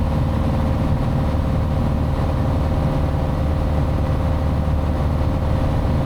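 Piper Archer's four-cylinder Lycoming piston engine and propeller running steadily in cruise, heard as a constant drone inside the cabin.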